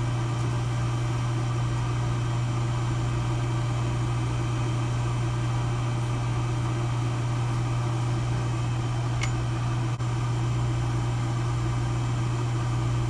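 Bench polishing motor running with a steady low hum while the inside of a ring is buffed with tripoli on a felt tapered inside-ring buff.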